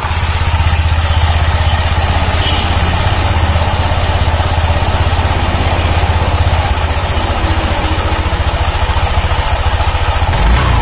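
Honda Vario 150 scooter's single-cylinder engine, just started, idling steadily; the revs begin to rise near the end.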